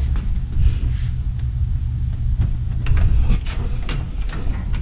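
Red hydraulic floor jack being pumped by its long handle to raise a car, with a series of short clicks and knocks from the strokes at uneven spacing over a steady low rumble.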